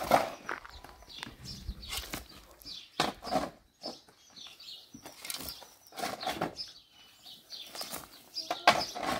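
Metal shovel digging and scraping into stony soil and gravel, with repeated crunching strokes roughly once a second.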